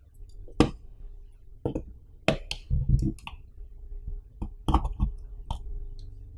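Sharp plastic clicks and clacks as a camera battery is slid and snapped onto the slot of a Kingma three-slot battery charger, fiddled with, and pulled off again: about nine separate knocks, in small clusters.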